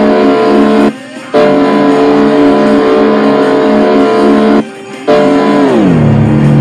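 Electric-guitar music on a cartoon soundtrack: a loud held chord that cuts out briefly twice, then slides down in pitch near the end.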